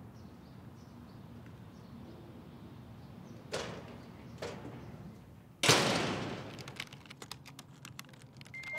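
Two short knocks, then a loud thud that rings away, followed by a quick run of clicks and ticks over a low hum.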